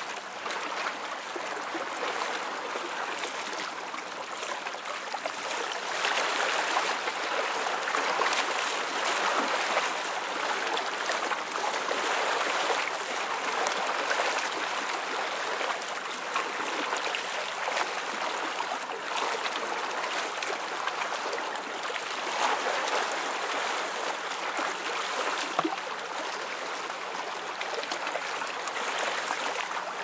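Small waves lapping and splashing at the lake shore: a continuous watery wash that swells and eases, a little louder for a while in the middle.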